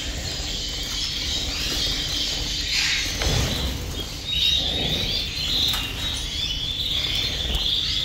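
Caged canaries chirping and twittering in high, short trills, which grow busier from about halfway in.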